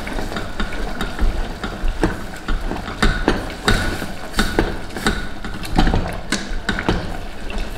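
A metal slotted ladle knocking and scraping against the bottom of a stainless-steel pot as whole tomatoes are mashed into a simmering curry: repeated, irregular knocks, about two or three a second.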